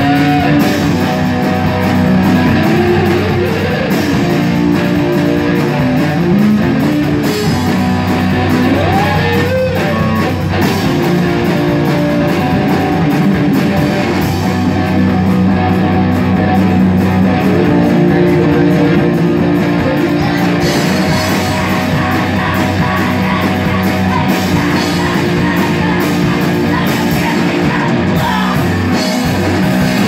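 Rock band playing live: distorted electric guitars over a drum kit, steady and loud.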